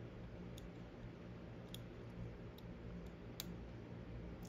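A few faint, sharp clicks of small tools against a plastic wiring-harness connector as a terminal pin is worked out of it, over a low steady hum.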